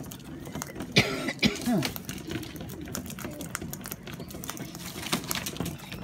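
Sulphur-crested cockatoos pecking and cracking seed on a corrugated iron roof: a rapid irregular run of small beak clicks and taps on the metal. About a second in comes one louder, short harsh call.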